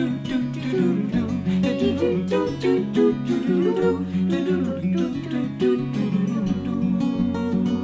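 Acoustic guitar strummed as accompaniment while a group of voices, a woman's, a man's and a girl's among them, sing a folk song together.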